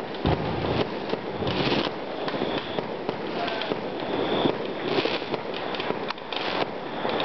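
Many fireworks and firecrackers going off at once: a dense, continuous crackle of pops with an occasional louder bang, one of them near the start.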